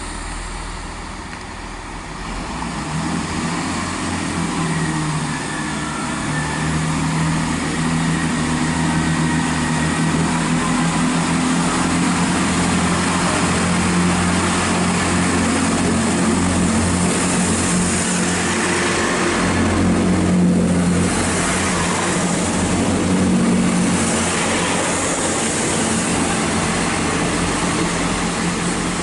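Class 166 Turbo diesel multiple unit pulling out of the station, its underfloor diesel engines droning. The sound grows louder over the first few seconds, then holds steady, with a hiss rising in the second half.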